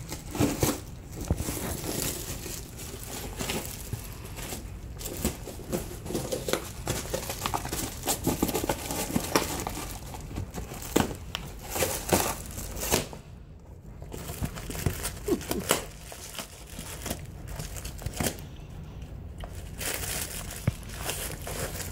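Alaskan Malamute tearing open a cardboard mail package with his teeth while pinning it with a paw: irregular crinkling, crackling and ripping of cardboard and paper, with a couple of brief pauses.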